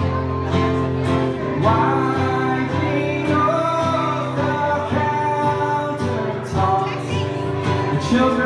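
Strummed acoustic guitar with a man singing along.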